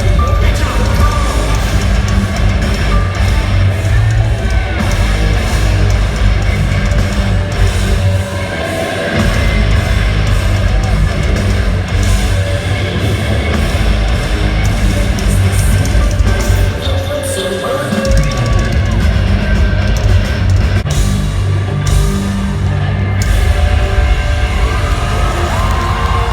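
Live rock/rap concert music heard from the crowd: a loud band with heavy bass and drums, and vocals over it.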